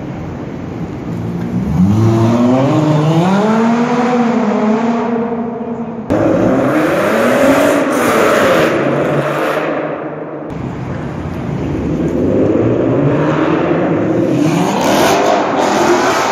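Cars doing donuts and drifts: engines revving hard, their pitch climbing and falling, over a steady tyre hiss. Two abrupt cuts, about six and ten seconds in, switch between cars: a dark sedan, then a red Ford Mustang, then a Dodge Charger.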